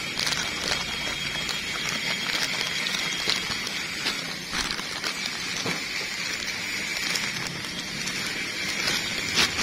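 Clear plastic bag crinkling and rustling with scattered small clicks as parts are handled inside it, over a steady background hiss.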